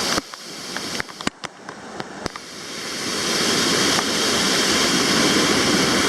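Waterfall: falling water making a steady rushing noise. For the first two seconds it is muffled and lower, broken by several sharp clicks, then it swells back to full level and stays steady.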